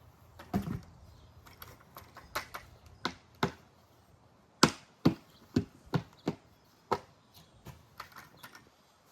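A series of sharp, irregular knocks or chopping strikes, about fifteen in all, the loudest clustered in the middle.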